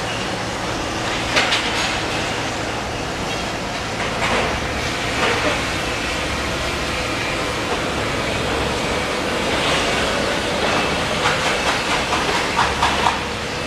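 A train running past, with clusters of clicks and knocks over a steady rumble and hiss, and a faint steady whine in the second half.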